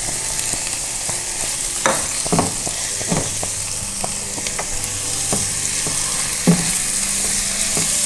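Soaked moong dal sizzling in hot oil in a nonstick kadhai while a silicone spatula stirs it, with a steady hiss and a few short knocks of the spatula against the pan, the loudest about six and a half seconds in.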